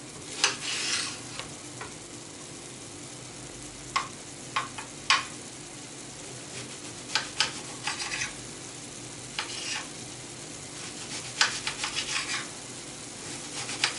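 Vegetables sizzling in oil in a frying pan, with a steady hiss. A utensil stirring them scrapes and clicks against the pan at irregular moments.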